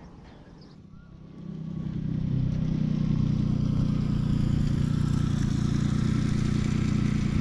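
Outboard motor idling, a steady low hum that comes up over the first two seconds and then holds even.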